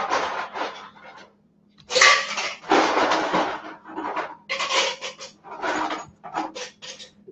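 Kitchen handling noises: a copper skillet set down on a gas stove's grate near the start, then several short bursts of rustling and scraping as paper towels and fried green tomato slices are moved on the counter, over a faint steady low hum.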